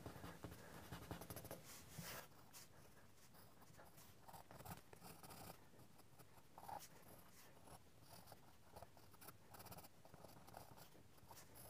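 Faint scratching of a graphite pencil on sketching paper: short, irregular shading strokes.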